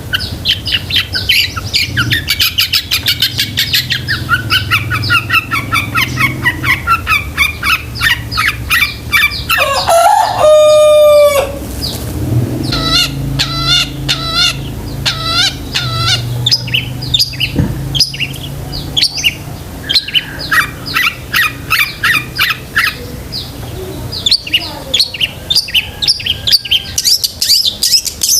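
Long-tailed shrike singing a fast, varied run of chirps and mimicked bird calls. The song includes a loud, drawn-out call with several pitches stacked together about ten seconds in.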